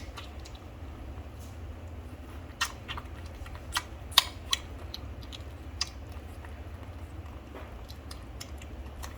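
Silver parti Maltipoo puppy chewing and crunching food, with sharp, irregular crunches that come more often in the first half.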